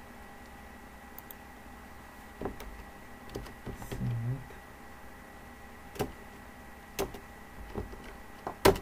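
Computer keyboard keystrokes: scattered single key clicks about a second apart as a terminal command is typed, the loudest near the end.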